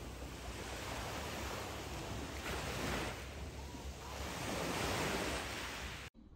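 Steady rush of sea water with wind on the microphone, a low rumble under it, swelling and easing a little, then stopping abruptly near the end.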